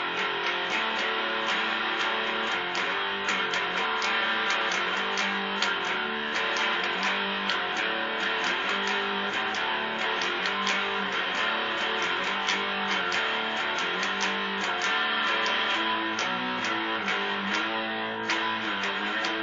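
Les Paul-style electric guitar played with a fast, steady run of pick strokes over ringing chords.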